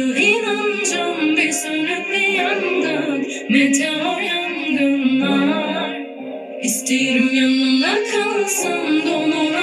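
A woman singing a wavering melodic vocal line in a Turkish rap song, with the beat underneath.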